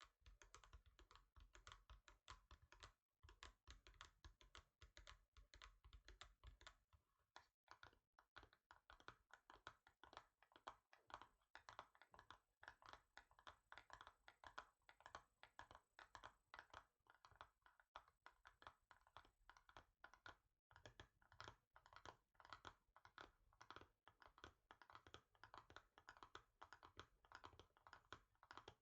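Fast, continuous finger tapping on a hard surface, many light taps a second. A duller, lower knock goes with the taps at first and drops away about seven seconds in, when the taps turn lighter and crisper.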